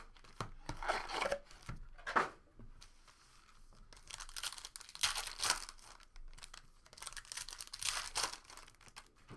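Trading-card pack wrappers being torn open and crinkled, in a run of irregular rasping tears with quieter handling between them.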